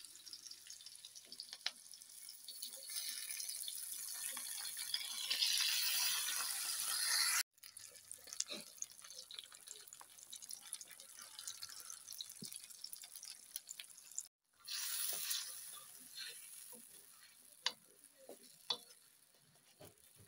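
Hot oil and onions in a wok hissing and sizzling as a little water and then sauce are poured in. The sizzle builds to its loudest about six seconds in, then comes back quieter in short stretches, with a fresh burst that dies away. Light clicks of a wooden spatula against the wok come near the end.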